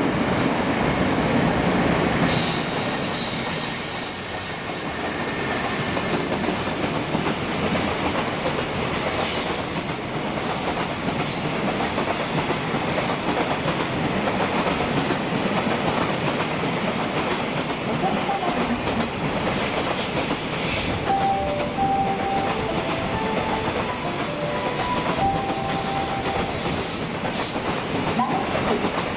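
Freight train running past, its wheels clattering steadily on the track, with high-pitched wheel squeal coming and going.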